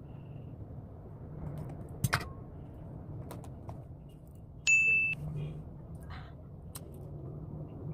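A sharp click about two seconds in, then a short, bright ding a little after halfway, the loudest sound here, over a steady low hum.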